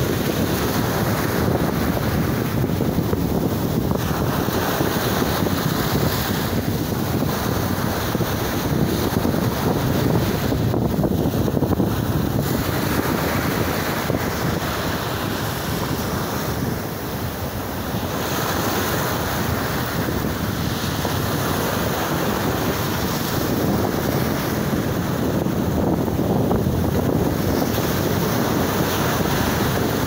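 Sea waves breaking and washing up a sandy beach, a continuous rush of surf, with wind buffeting the microphone.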